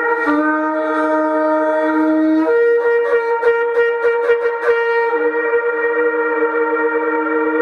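A long, twisted shofar sounded in one continuous blast. The low note steps up to a higher one, which carries a rapid run of short staccato pulses, about five a second, before dropping back to the low note.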